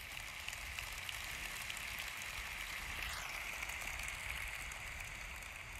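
Live audience applauding, a dense patter of clapping that swells in the middle and eases off near the end.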